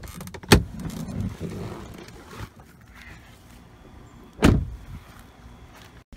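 A truck door clicks open about half a second in, and about four seconds later it is shut with a single thud.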